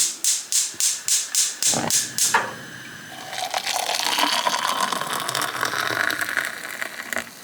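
A quick run of about nine sharp clicks, then water running into a kettle for tea, with the pitch of the filling rising slightly as it fills.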